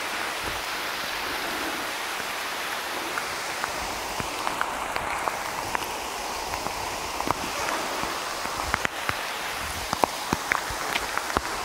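Steady rain falling on rainforest foliage: an even hiss with scattered sharp drip ticks, which come more often in the second half.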